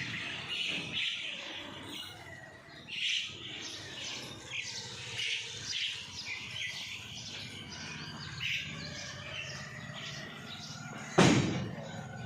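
Small birds chirping and chattering in repeated short calls, with one loud thud near the end.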